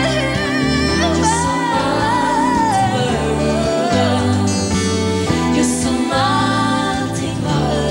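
A woman singing a slow ballad live, holding long notes with vibrato, over a band with acoustic guitar.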